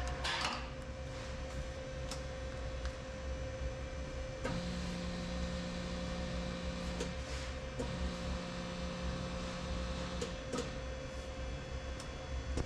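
Cylinder boring machine humming steadily while its feed motor lowers the boring bar into the bore, in two runs of about two and a half seconds with a short pause between, with a few light clicks from the controls.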